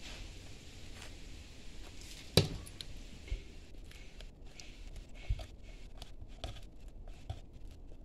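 Small handling sounds as a metal pick scrapes around a Bluetooth speaker's plastic housing and a thumb presses the rubber rim of a speaker cone into its seat. There is one sharp click about two and a half seconds in, then a few lighter taps.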